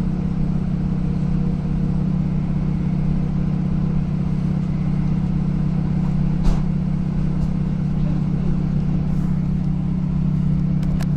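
Steady engine drone heard inside a diesel passenger train's carriage, with a few even tones low down and a haze of running noise, and a single knock about six and a half seconds in.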